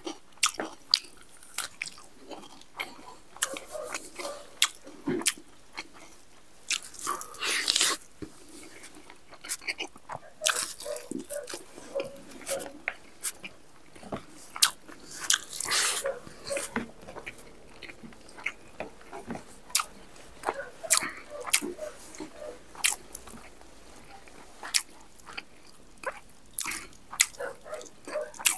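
A man chewing and biting into pieces of spicy buffalo meat with rice, close to a clip-on microphone on his jacket. The eating goes on throughout with many small clicks, and there are longer, louder bursts about 7 and 15 seconds in.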